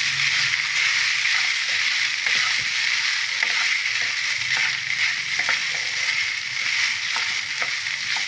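Wooden spatula stirring and scraping cooked coconut rice around a pan, with soft irregular clicks of the spatula against the pan over a steady hiss.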